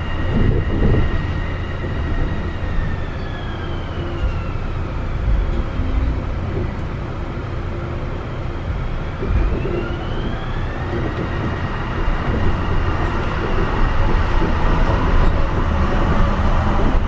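Port Liner automated guideway train running on its rubber tyres, heard from inside the car: a steady low running rumble with a high electric motor whine that slides down in pitch during the first few seconds and climbs back up again a little before halfway.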